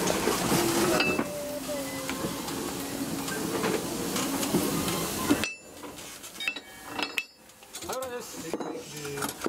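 Metal clinks and knocks from the coupler of a small narrow-gauge steam locomotive as it is coupled up by hand. For about the first half a steady hiss runs under them, then cuts off suddenly.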